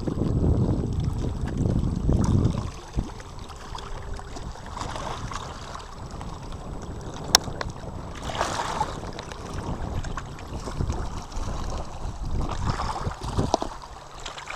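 Wind buffeting the microphone outdoors, a heavy low rumble for the first couple of seconds, then a lighter steady rush with scattered crackles and a sharp click about seven seconds in.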